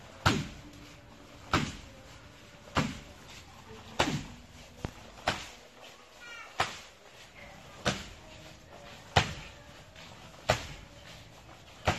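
Kicks landing on a tree trunk in kickboxing practice: a sharp thud about every second and a quarter, some ten strikes in all, two of them close together near the middle.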